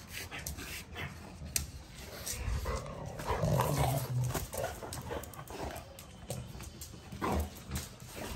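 A pet dog making short, low vocal sounds, loudest from about three to four and a half seconds in and again briefly near the end, with a few light clicks between them.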